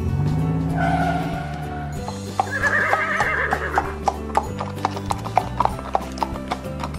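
Dubbed horse sound effects: a horse neighs briefly about two and a half seconds in, with clip-clop hoofbeats at about three a second starting with it and running on to the end. A held pitched sound effect fills the first two seconds, and background music plays throughout.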